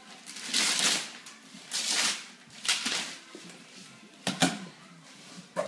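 Wrapping paper being torn from a cardboard box in several quick rips, then the box's cardboard flaps handled, with two sharp knocks about four seconds in.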